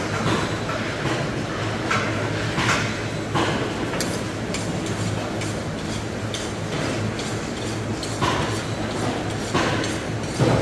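Knife cutting a stingray: irregular short knocks and scrapes over a steady background hum, with a louder thump at the very end.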